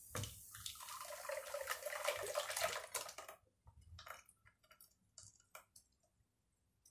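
Blended banana and milk mixture poured into a saucepan: a steady liquid stream for about three seconds, then a few light knocks and clinks.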